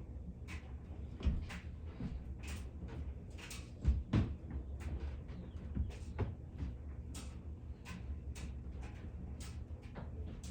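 Soldering flux crackling and popping as the hot soldering iron melts it on the wire joint: irregular sharp pops, about two or three a second, with louder ones about a second in and around four seconds in, over a steady low electrical hum.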